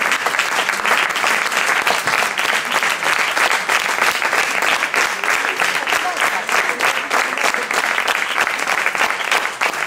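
A small audience applauding steadily, many hands clapping at once in a dense, even patter.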